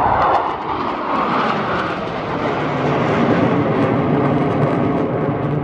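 Blue Angels F/A-18 Super Hornet jets in flight: a loud, steady jet engine roar.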